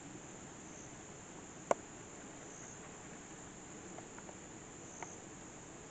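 A steady high-pitched insect chorus that swells briefly a few times. A single sharp snap a little under two seconds in, and a few faint ticks later.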